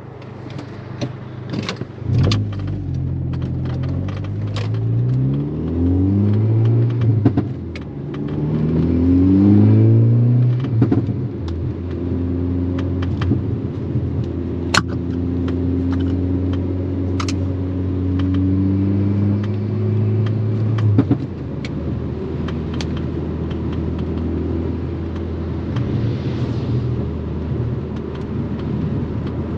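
MK6 Volkswagen Golf R's turbocharged four-cylinder engine with an aftermarket turbo-back exhaust, pulling through several gears with rising revs and quick shifts, then holding steady revs at a cruise and easing off about 21 seconds in. Scattered sharp clicks and ticks sound over the engine.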